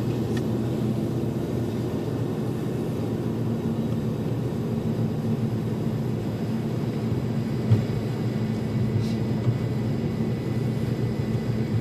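Car engine and tyre noise heard from inside the cabin: a steady low drone while driving along the course, with no revving.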